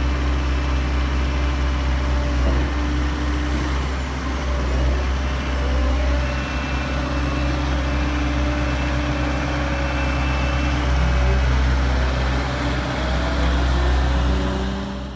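Diesel engine of a Fuchs MHL320 material-handling excavator running steadily with a deep, even drone, the machine standing still with its boom raised.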